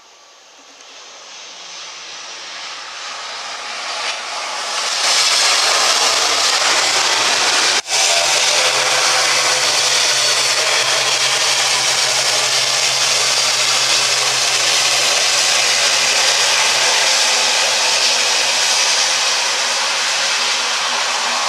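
Turboprop airliner engines running close by, building up over about five seconds and then holding loud and steady with a low hum beneath the noise. The sound drops out for an instant about eight seconds in.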